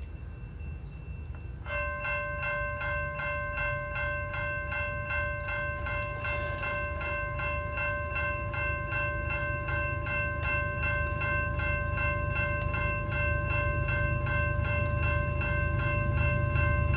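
A railroad grade-crossing bell starts ringing about two seconds in, at a rapid, even pace of about four strokes a second. Under it runs the low rumble of a train, growing steadily louder.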